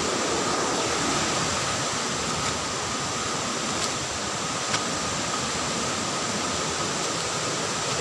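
Steady rushing of a forest river's water running over rocks, with two faint clicks around the middle.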